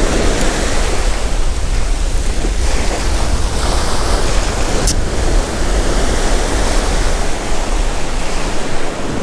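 Ocean surf breaking and washing up a sandy beach, a steady rush, with wind rumbling on the microphone.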